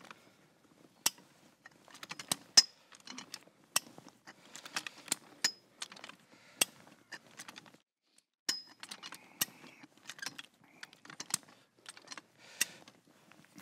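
High-lift ratchet jack being worked under load to pull a soil access tube out of the ground: an irregular string of sharp metallic clicks and clanks from its ratchet mechanism, with a pause of about a second just past halfway.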